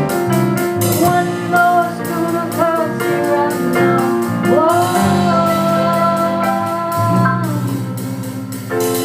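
A song: a voice singing over guitar accompaniment, holding one long note through the middle.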